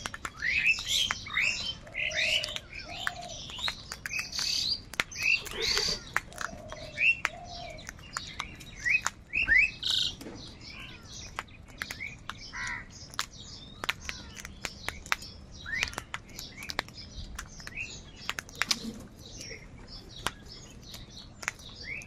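A flock of house crows calling while feeding, with many short harsh calls overlapping, busiest in the first half and thinning out later. Sharp ticks of beaks pecking run through it.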